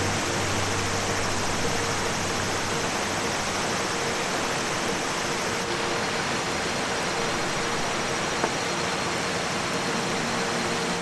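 Steady rushing hiss of a shallow mountain river flowing over stones, with one brief knock about eight seconds in.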